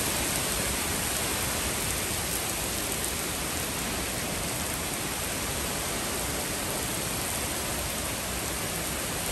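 Heavy rain pouring steadily onto a wet paved street and lawns, an even hiss without a break.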